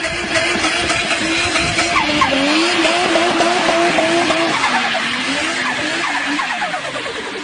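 Car engine held at high revs while the tyres skid and squeal, the pitch wavering up and down. Near the end the revs fall away.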